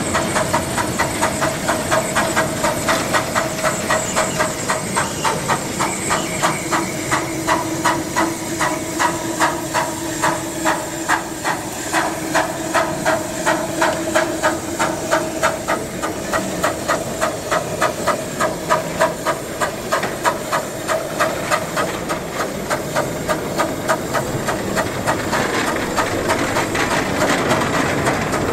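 A 12-inch gauge 0-4-2 tank steam locomotive working under steam, its exhaust beating in an even rhythm of about two chuffs a second over a steady hiss of steam.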